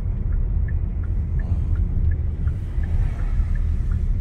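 Low, steady rumble of road and engine noise heard from inside a moving vehicle, with faint light ticks repeating about two or three times a second.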